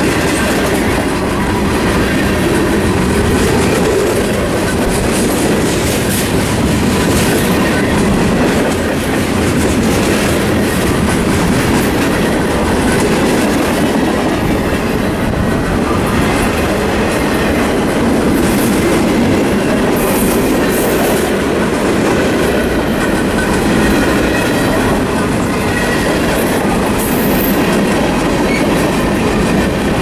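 Freight cars of a long mixed train (tank cars, autoracks, covered hoppers) rolling steadily past close by: a loud continuous rumble of wheels on rail with repeated clickety-clack from the wheels crossing rail joints.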